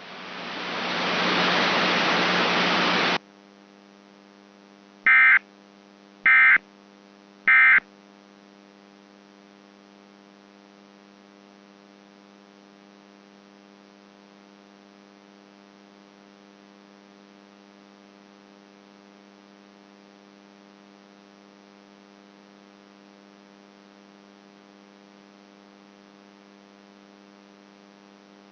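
A loud burst of static lasting about three seconds, then three short bursts of Emergency Alert System SAME data tones: the end-of-message signal. After them a steady electrical hum with many overtones carries on, like a dead broadcast carrier.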